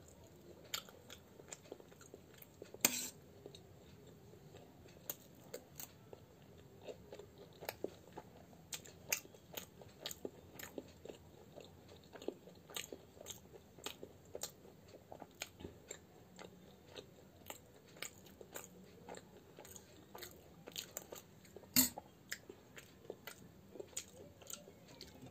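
Close-up mouth sounds of a person eating fried matar kachori and puri by hand: chewing and biting with many small crisp clicks. Two sharper, louder clicks stand out, one about three seconds in and one near the end.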